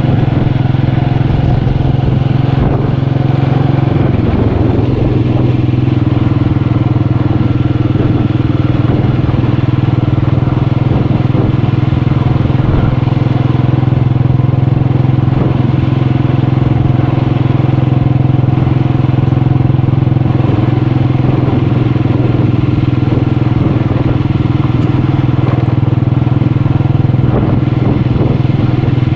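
Motorcycle engine running steadily at a constant pitch while under way.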